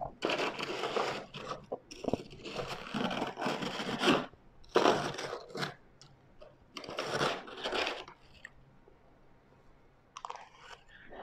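A person biting and chewing refrozen white ice close to the microphone, in about four loud crunching bouts of a second or so each, then a short pause before the crunching starts again near the end.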